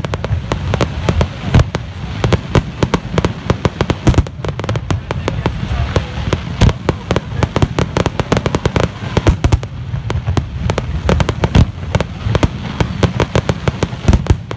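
Fireworks display: aerial shells bursting in a dense, unbroken barrage of sharp bangs, several a second, over a continuous low rumble.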